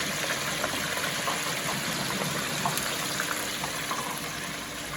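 Chicken frying in hot oil in an enclosed automatic electric deep fryer: a steady dense sizzle flecked with small pops and crackles.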